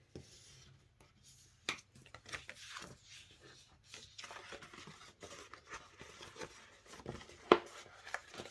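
Cardstock folded back and forth along scored lines and creased with a bone folder: paper rubbing and crinkling, with scattered sharp taps, the loudest about seven and a half seconds in.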